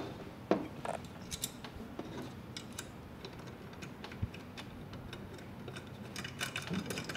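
Small, irregular metal clicks and taps of a bolt, nut and washer being handled and threaded by hand through a kart brake pedal and the master cylinder's pushrod. A few sharper clicks come about half a second and a second in, and a quick cluster near the end.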